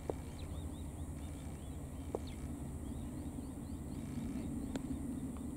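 Outdoor ambience: a steady low rumble, like wind on the microphone, with a few faint ticks and faint high chirps.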